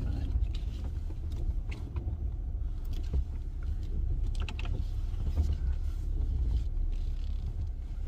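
Jeep Gladiator driving: a steady low rumble of engine and tyres, with scattered light clicks and knocks.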